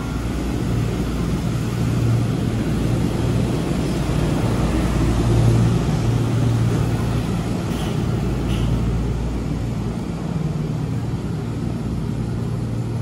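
Chiba Urban Monorail suspended train arriving at the platform: a steady rumble with a low hum from its rubber-tyred bogies running inside the overhead track beam. It is loudest as the cars pass midway through and eases a little as the train slows to a stop.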